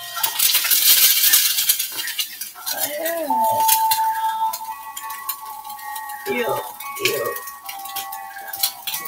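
A utensil clinking and scraping against a bowl and frying pan, many small clicks and taps, with food sizzling in the pan for the first couple of seconds.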